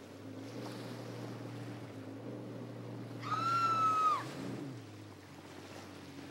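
Steady drone of a personal watercraft engine over the wash of open water. About three seconds in, a loud, high held tone lasts about a second and falls away at its end.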